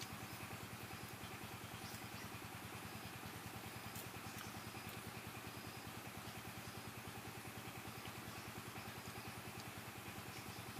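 A small engine idling with a steady, evenly pulsing hum that does not change, and a few faint ticks on top.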